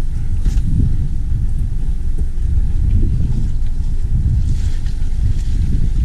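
Wind buffeting the microphone: a heavy, low rumble that swells and fades unevenly.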